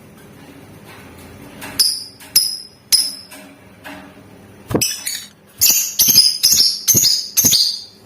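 Lovebird giving sharp, shrill chirping calls: three separate calls a little under half a second apart, then after a pause a quicker run of about five calls close together near the end.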